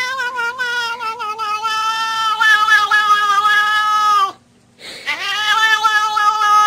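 Domestic cat yowling in long, drawn-out cries. The first cry falls slightly in pitch and breaks off about four seconds in; a second starts about a second later.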